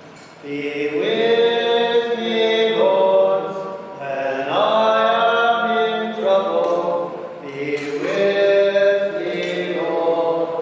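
Chant-style singing in long held notes, in three phrases of about three seconds each with short breaks between them.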